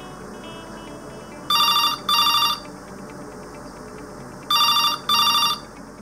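A basic desk telephone's built-in electronic ringer rings in a double-ring pattern: two pairs of short rings, about three seconds apart. This is the phone's stock, unamplified ring.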